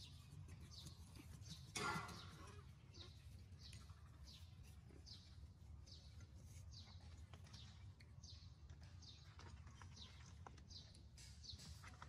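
Short, high, falling animal chirps repeated about twice a second, with one louder brief cry about two seconds in.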